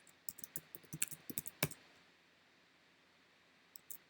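Computer keyboard keys clicking in a quick, irregular run of keystrokes for the first second and a half or so, then a pause, with one more keystroke near the end.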